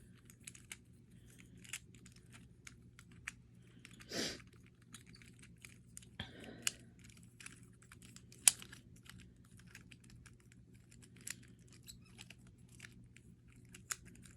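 Plastic infinity cube fidget toy being folded and flipped in the hands: irregular light clicks and taps, with a brief scuff about four seconds in and a sharper click past the middle.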